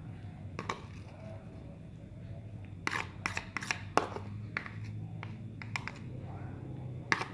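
Scattered light clicks and taps, with some soft rubbing, as grated ginger is squeezed by hand over a dish to press out its juice.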